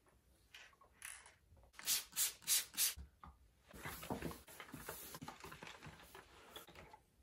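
Panasonic iron sliding over a shirt on an ironing board: four quick, loud strokes about two seconds in, then about three seconds of steadier sliding.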